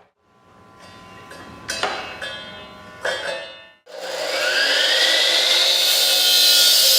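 A handheld electric concrete saw with a 14-inch blade is switched on about four seconds in. Its motor whine rises as it spins up, then settles into a steady, loud high-speed run. Before that there are a few knocks with a ringing tail.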